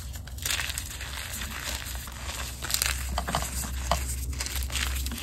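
Hands crushing and crumbling reformed gym chalk: an irregular run of dry crunches and crackles over a powdery rustle, with a few sharper cracks about three and four seconds in. A steady low hum sits underneath.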